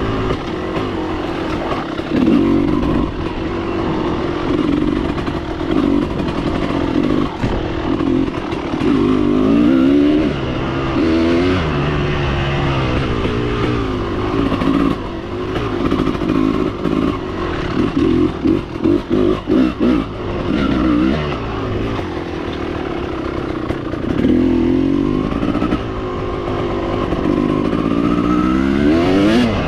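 Motorcycle engine being ridden, revving up and falling back again and again through the gears. About two-thirds through there is a choppy run of quick on-off throttle.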